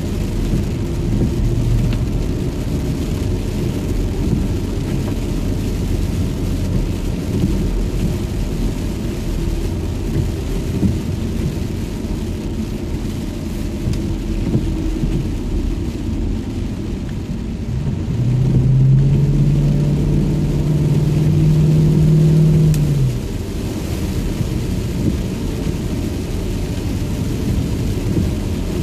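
Inside a moving car on a wet road: a steady low rumble of tyres and engine, with rain on the car. About eighteen seconds in, a low engine hum rises slightly, holds for about five seconds, then stops sharply.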